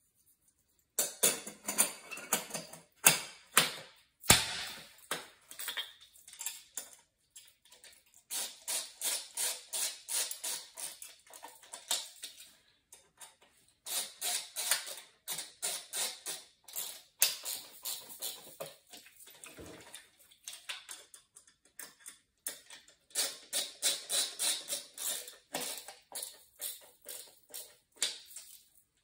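Hand-tool work on a removed oil burner's metal head: runs of rapid metallic clicking and ticking, with a few sharper knocks in the first few seconds.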